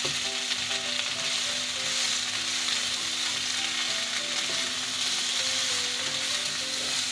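Chicken wings sizzling in a thick sticky sauce in a nonstick wok, stirred and pushed around with a silicone spatula; a steady frying hiss as the sauce cooks down to coat the wings.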